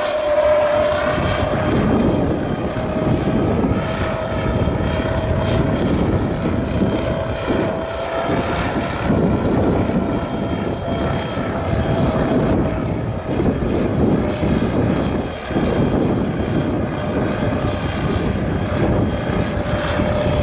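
Electric motors and propellers of an unmanned aircraft in flight, giving a steady whine that drifts slightly in pitch, over a loud, fluctuating rushing noise.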